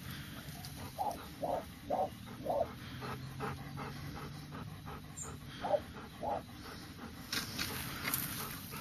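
Dog barking in short, dull-sounding single barks, four about half a second apart in the first few seconds and two more past the middle, with dog panting between them.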